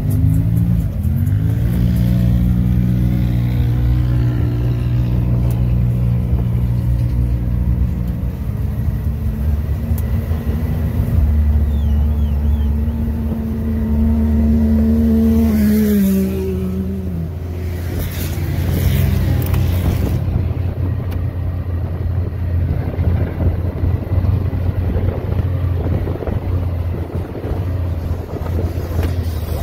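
Off-road vehicle engine rising in pitch about a second in and running steadily, then winding down about halfway through. After that comes a rough rumbling noise with no clear engine note.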